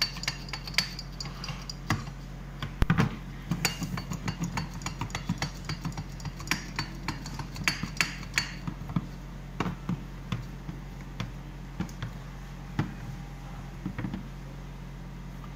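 Irregular metallic clicks and knocks from a V-PexPress MH32 axial press being worked and handled. The clicks come thick and fast for the first eight seconds or so, then turn sparse, over a steady low hum.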